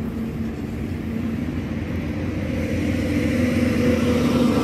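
Motor vehicle engine running with a steady low hum, with road noise growing louder over the last couple of seconds.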